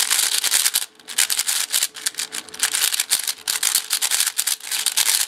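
MoYu Weisu 4x4 speedcube being turned fast by hand to scramble it: a quick run of plastic clicking and rasping layer turns, broken by a few brief pauses.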